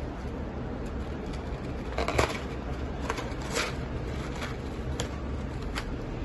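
Crisp crackles from crunchy fried chicken skin, scattered and irregular, with the loudest cluster about two seconds in, over a steady low hum.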